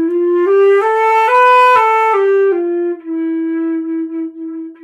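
Flute playing a slurred phrase that climbs one note at a time from E up to B and back down, then holds a long low E. It swells gradually louder toward the top note and falls softer on the way down: a crescendo and diminuendo.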